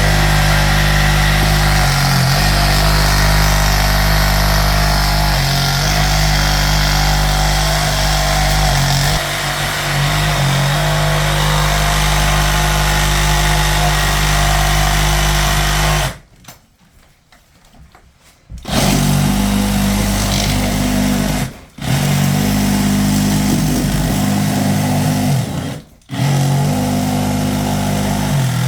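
Handheld power saw running under load with a steady drone that dips briefly now and then. About two-thirds of the way in it cuts off. After a short pause it is run again in several runs of a few seconds each, with brief stops between them.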